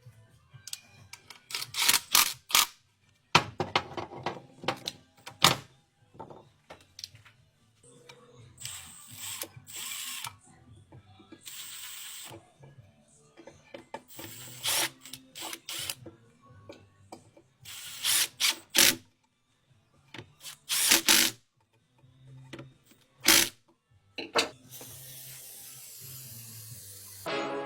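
Workshop repair sounds: intermittent short whirs of a power driver and clicks and knocks of hand tools, with a steadier hiss over the last few seconds.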